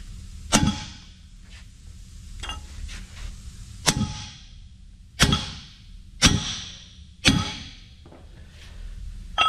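Sledgehammer blows on a steel driver plate, driving a steel sleeve into the end bore of a Caterpillar D9R equalizer bar. There are six ringing metal-on-metal strikes: one about half a second in, then after a pause five more roughly a second apart. The part is not yet fully seated.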